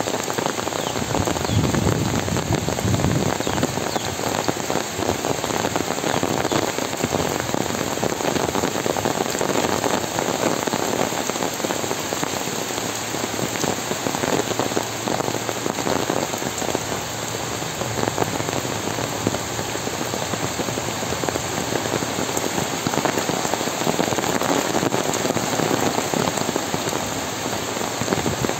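Heavy rain falling steadily, a dense even patter of drops on leaves and wet ground.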